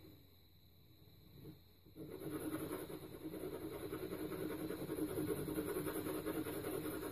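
Pencil shading on paper in rapid back-and-forth strokes, starting about two seconds in and running on steadily.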